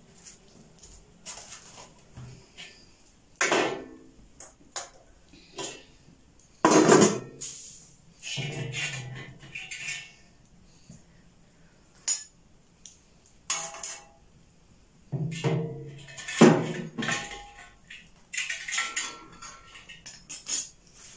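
Metal cookware clattering: a steel saucepan and utensils knocked and set down on a stove, in a series of separate clinks and knocks, the loudest about seven seconds in and again around sixteen.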